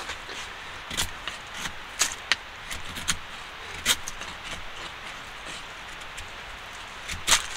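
Knife blade shaving curls off a stick of split firewood to make a feather stick: about half a dozen short, sharp scrapes at uneven intervals, the loudest near the end, over a steady hiss.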